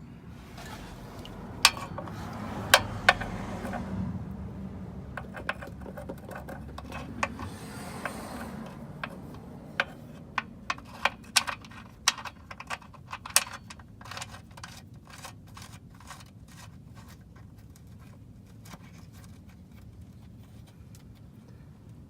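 Metal tools and parts clinking and scraping while the oil filter is worked off under the car. There are sharp clicks and knocks, the loudest in the first few seconds and a quick run of them about ten to fourteen seconds in, and then only faint handling.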